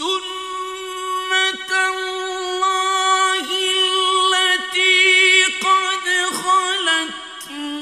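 Male Quran reciter chanting in the melodic mujawwad style: one long line sung mostly on a single held pitch, with ornamented turns and short breaks between syllables. It starts suddenly after a silent pause.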